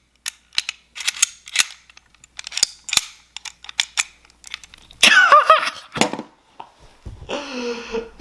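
Irregular sharp metallic clicks and clacks of 1911 pistol parts (barrel, bushing, slide) being handled and fitted together during reassembly. A short vocal sound cuts in about five seconds in.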